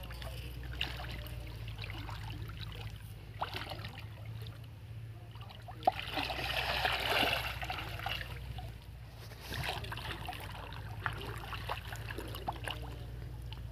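Shallow pond water sloshing and trickling as a person wades and works his hands through it, with a louder stretch of splashing about six seconds in.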